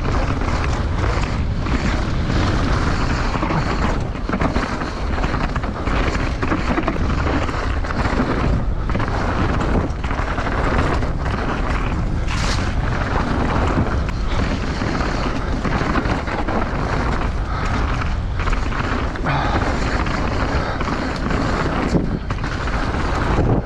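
Wind rushing and buffeting over the microphone while moving at speed: a loud, steady roar strongest in the low end, swelling and dipping a little, with a short hiss about halfway through.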